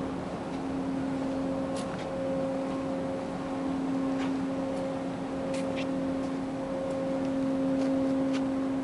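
Steady machinery hum aboard a ship, holding one low pitched tone with higher overtones and no change in speed, with a few light clicks scattered through it.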